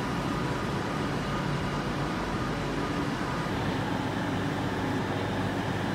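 Steady mechanical hum of trains standing idle at a station platform, with a few steady tones running through it.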